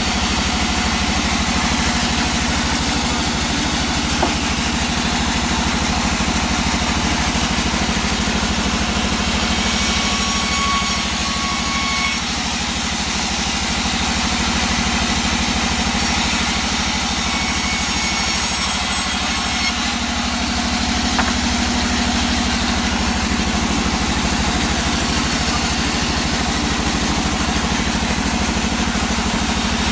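Engine of a wood saw running steadily at one even speed.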